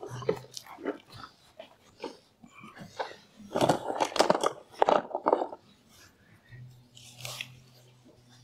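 Irregular crunching and rustling in turf as robot-mower perimeter-wire pegs are pushed into the lawn, with a dense run of quick crunches in the middle.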